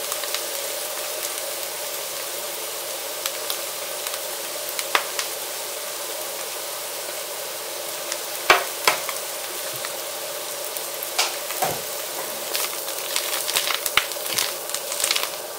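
Rehydrated dried mushrooms frying in butter and oil in a nonstick pan, a steady sizzle, with a couple of sharp knocks about halfway. Near the end a wooden spoon and spatula toss the mushrooms, adding quick clicks and scrapes.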